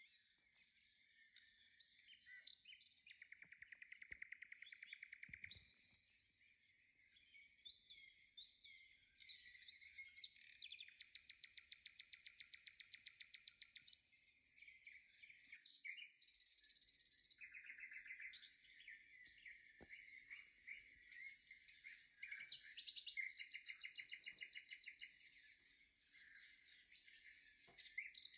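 Faint chirping of small songbirds, continuous, with short calls broken by several fast trills of rapidly repeated notes.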